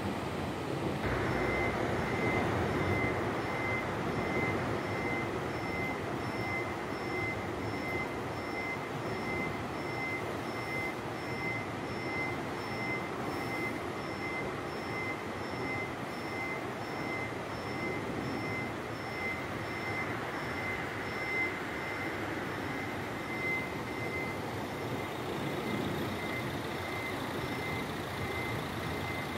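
Level crossing warning bell starting about a second in and ringing on with a rapid, even, high electronic ding, signalling that the barriers are coming down for an approaching train. A steady rushing noise runs underneath.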